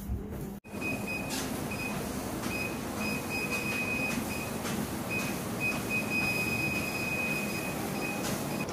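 Motorised home treadmill running: a steady rumble of motor and belt with a high whine that comes and goes, and a few sharp clicks.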